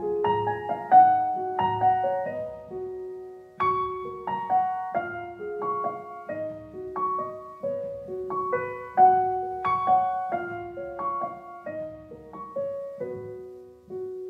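Background music: a gentle solo piano melody of single struck notes that ring and fade, with a short break about three and a half seconds in.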